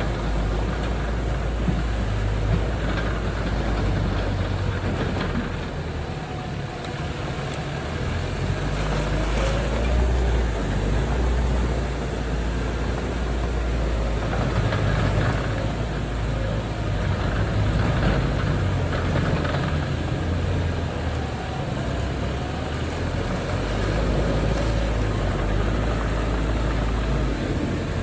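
Heavy diesel earthmoving machinery running, the engine note swelling and easing as it works under changing load.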